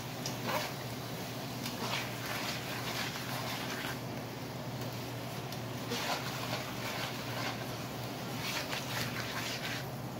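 Apple slices in brown sugar sizzling in a nonstick frying pan while a spatula stirs and scrapes them, with irregular scraping strokes over a steady sizzle and a low hum underneath.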